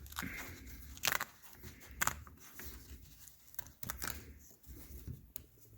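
Strip of cork roadbed being pulled apart into its two halves along the centre split, giving scattered crackles and rustles as the cork tears and is handled.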